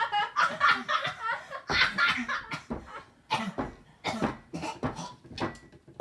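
Laughter in a run of short, breathy bursts, pitched and wavering at first, then choppier and fading toward the end.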